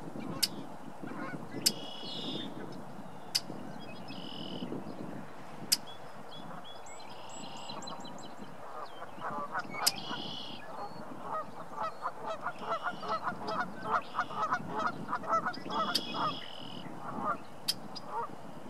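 Red-winged blackbirds calling: sharp short calls and buzzy, trilled song phrases every few seconds, with a fast run of lower calls, several a second, from about halfway through to near the end.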